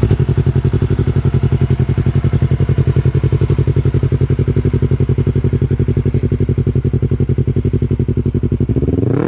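Yamaha YZF-R3's parallel-twin engine with an aftermarket exhaust idling steadily with an even, rapid pulse, then a quick blip of the throttle at the very end.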